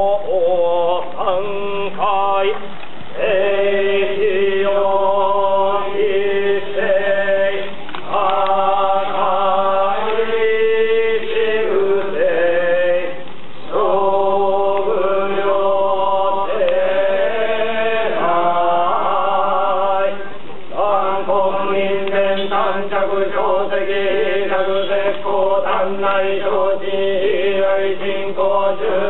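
Group of Shugendō yamabushi chanting a sutra in unison: a steady, droning recitation on held pitches, broken by short pauses for breath a few times.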